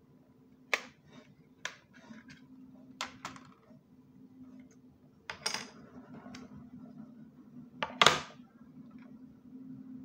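Sharp clicks and knocks of a laptop hard drive, an SSD and a plastic drive bracket being handled and set down on a laptop's base and a wooden table. A handful come a second or more apart, the loudest about eight seconds in, over a faint steady hum.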